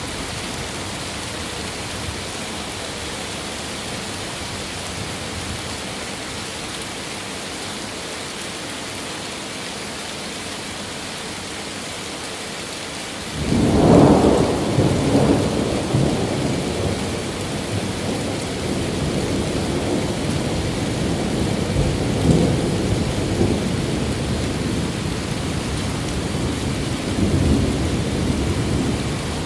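Steady rain falling, then about halfway through a sudden crack of thunder that rolls on as a long low rumble, swelling again several times.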